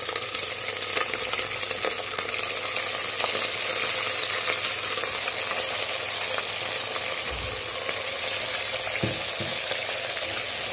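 Raw mutton pieces sizzling in hot mustard oil in a pressure cooker, just added onto fried onions and whole spices: a steady loud hiss with scattered light crackles.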